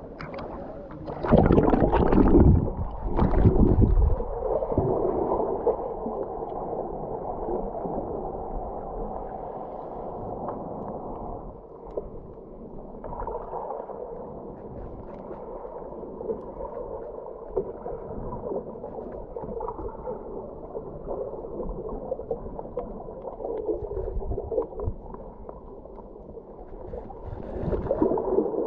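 Splashing as a camera dips under the sea surface about a second in, then the muffled, steady sloshing and gurgling of water heard through the submerged camera.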